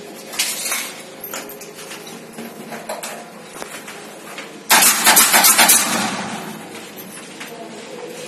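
Work noises from fitting a plastic bathroom ceiling: scattered light knocks and clatter, then a sudden loud rattling burst a little past halfway that lasts about a second and fades.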